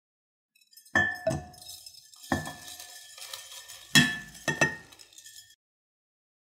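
Handfuls of small rubber hair bands dropped into an empty glass food-chopper bowl. The glass clinks and rings with each load, about six knocks in three bursts with a light patter of bands in between, and the sound stops about five and a half seconds in.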